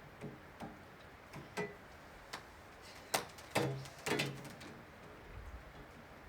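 A series of irregular sharp knocks and clicks, some with a short low ring, coming thickest and loudest about three to four and a half seconds in.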